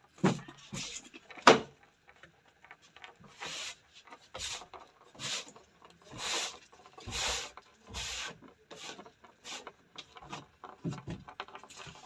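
A beetle stuck on its back beats its wings against a wooden surface in short rasping scrapes, about one a second. Two sharp knocks come in the first second and a half and are the loudest sounds.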